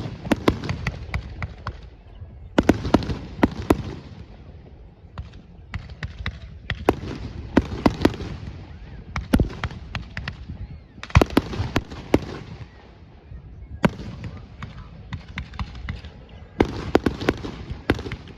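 Fireworks display: clusters of sharp bangs and crackling every two to three seconds, over a low rumble.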